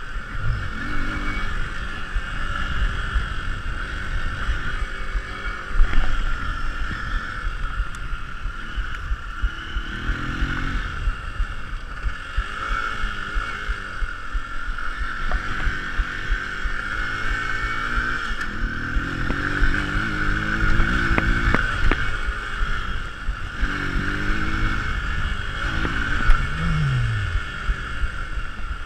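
Motorcycle engine heard from the rider's seat on a dirt track, the throttle opened and closed in repeated swells of rising and falling pitch, with one clear drop in revs near the end. Heavy wind rumble and bumps on the microphone run underneath.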